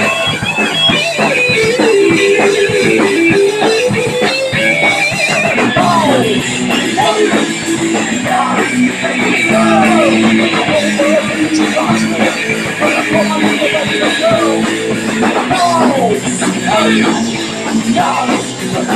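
Punk rock band playing live: loud distorted electric guitar with bending, sliding notes over drums.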